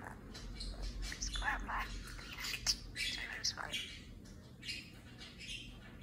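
Budgerigar chirping in short, irregular calls close by, with a quieter spell about four seconds in.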